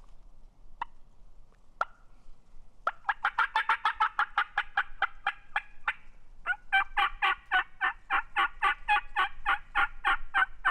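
Turkey calling: two short single notes, then two long runs of rapid, evenly spaced rattling notes at about seven a second.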